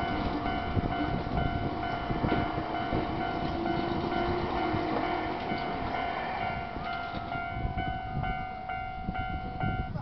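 Japanese railway level-crossing alarm ringing with rapid repeated dings over the rumble and wheel noise of a passing Nankai 7100 series electric train. The rumble fades in the last few seconds and the crossing alarm cuts off suddenly near the end as the train clears the crossing.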